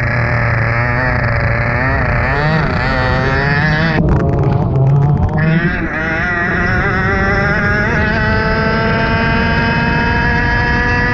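A racing kart's two-stroke engine heard close up from on board. The revs rise and fall unevenly through the bends, break up briefly about four seconds in, then climb in one steady rising pitch through the second half as the kart accelerates.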